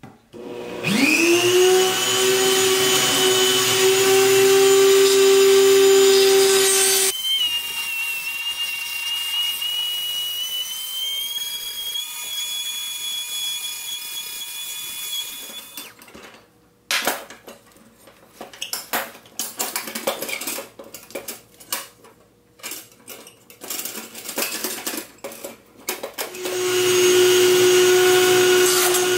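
Dremel rotary tool spinning up to a steady high whine and grinding at the axle rivet of a pressed-steel toy truck wheel. Partway through, the pitch climbs higher. Then the tool grinds in short, uneven scratchy spells, and near the end it spins up again to its steady whine.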